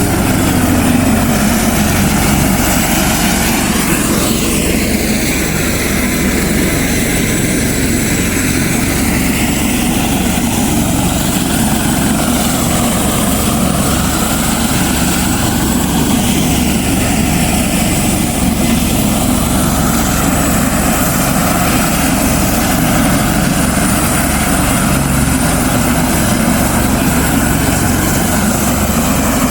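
Helicopter running loudly, a steady rotor and engine noise whose tone sweeps slowly up and down.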